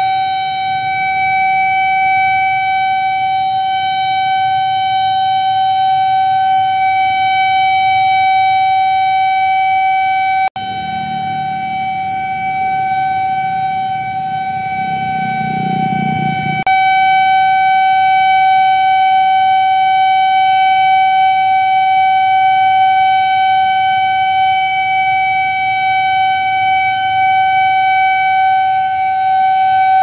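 A siren sounding one long, steady note that neither rises nor falls, sounded to mark the moment of the Indonesian independence proclamation commemoration. For a few seconds in the middle, motorbike traffic is heard beneath it.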